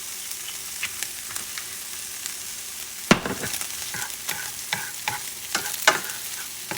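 Egg, ham, onions and peppers sizzling steadily in oil in a non-stick pan. From about three seconds in, a utensil stirs the food, with irregular scrapes and taps against the pan; the first tap is the loudest.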